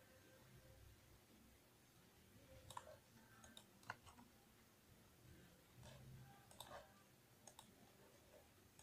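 Near silence, with about ten faint, scattered clicks from a computer mouse and keyboard.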